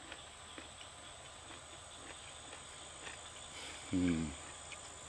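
Insects chirring steadily in the background. About four seconds in, a man gives a short humming 'mm', falling slightly in pitch, while chewing a sweet piece of baked yucca stalk.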